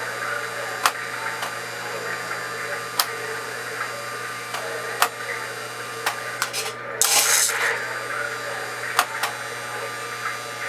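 A model GS-4 steam locomotive's QSI QS2+ sound system playing its standing-at-the-station sounds: a steady mechanical hum with sharp clicks every second or two, and a short hiss about seven seconds in.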